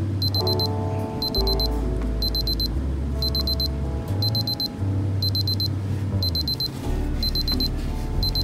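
Casio DB-520A digital watch's countdown-timer alarm beeping: quick bursts of four high beeps, about once a second, over background music. The alarm signals that the countdown has run out to zero.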